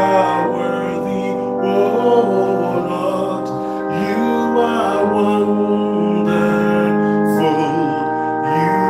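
Slow worship music played on an electronic keyboard, held chords sustained, with a man singing a bending melody over them.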